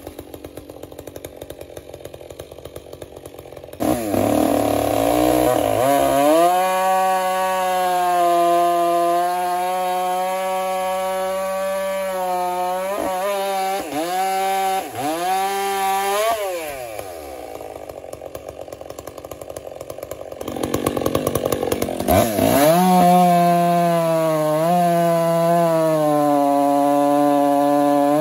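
Stihl chainsaw idling, then revved up about four seconds in and held at full throttle cutting into a white oak log, its pitch dipping briefly now and then under load. It drops back to idle for several seconds past the middle, then revs up and cuts again near the end.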